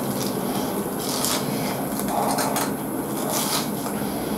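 Close-up crunching and chewing of a breaded fried shrimp, in several irregular crisp crunches.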